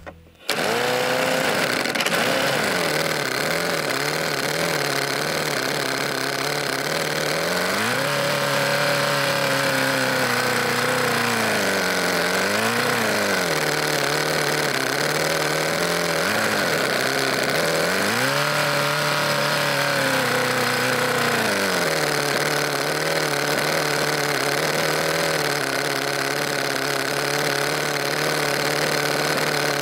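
The AA01 prototype CV-design engine, with two air-cooled cylinders, starts running suddenly about half a second in and idles steadily. In the middle it is revved up and let back down several times before settling back to a steady idle.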